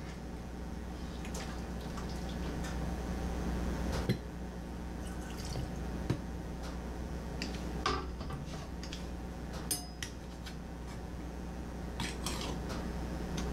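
Hot pumpkin cubes and cooking liquid ladled from a pot through a metal canning funnel into a glass quart jar: liquid splashing and pouring, with several sharp clinks of the funnel and ladle against the jar and pot, over a steady low hum.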